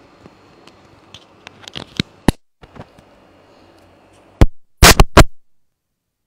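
Faulty microphone signal breaking up: a steady static hiss with scattered clicks and crackles, then a burst of loud pops about four and a half seconds in, after which the sound cuts out to dead silence.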